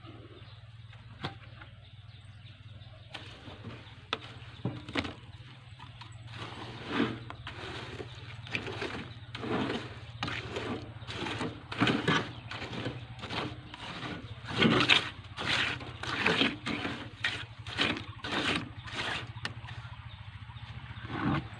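Mason's trowel working wet concrete, scraping and spreading it in quick irregular strokes that come thick and fast from about six seconds in. A steady low hum runs underneath.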